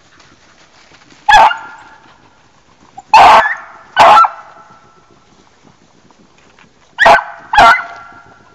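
A beagle baying on the trail of a swamp rabbit: five loud barks, each trailing off in a drawn-out ringing tail, three in the first half and two close together near the end.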